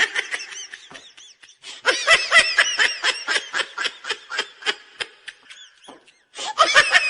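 Laughter: a run of quick, high-pitched bursts of laughing, several a second, breaking off briefly twice.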